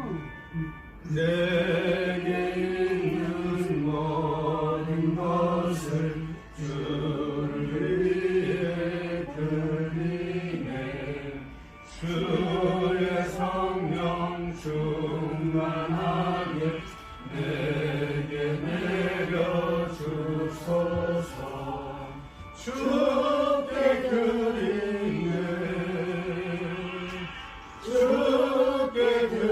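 A slow Korean worship hymn sung by voices in long, held phrases. Each phrase lasts about five seconds, with a short break between phrases.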